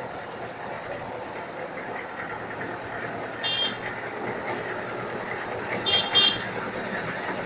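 Steady rumble of machinery and traffic at a road construction site, with short high-pitched toots: one about three and a half seconds in and a quick double toot about six seconds in.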